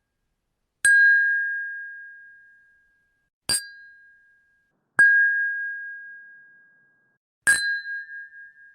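Stemmed glasses clinking together in a toast: four separate clinks a few seconds apart, each ringing on with a clear high tone that fades over a second or two. The last ring wavers as it dies away.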